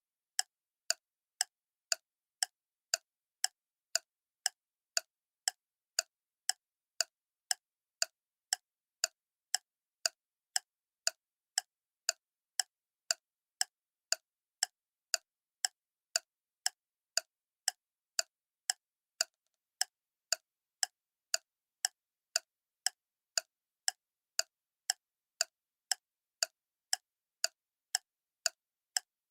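Clock ticking steadily, about two sharp ticks a second, with silence between the ticks.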